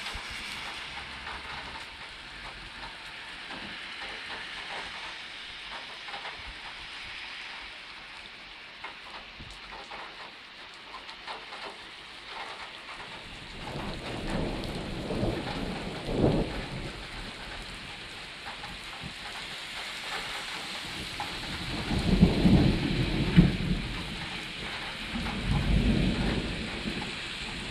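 Steady rain falling on wet pavement and roofs. Thunder rumbles in about halfway through and rolls again, louder, in the last third.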